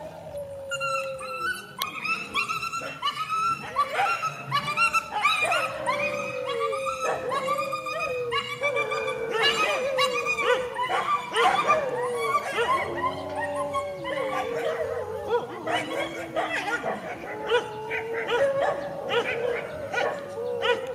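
Dogs yelping, whining and barking in a scuffle: a rapid string of short, falling yelps over a long wavering whine.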